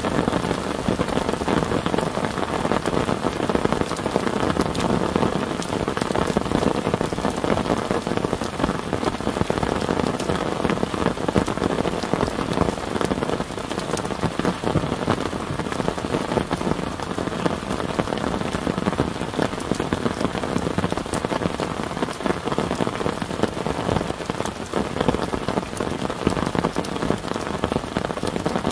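Heavy rain falling steadily, pattering densely on a clear plastic tarp shelter and the wet ground around it.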